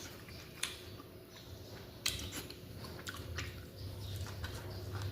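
A person eating: chewing, with a few sharp clicks about a second, two seconds and three and a half seconds in.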